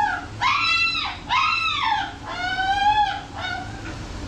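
Siberian husky howling and whining in protest at being groomed while its belly is brushed. It gives about four drawn-out, high cries, each dropping in pitch at the end, and stops a little before the end.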